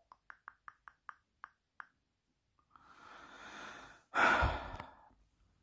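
A man breathes in and then lets out a loud sigh about four seconds in, after a run of about eight faint, light clicks in the first two seconds.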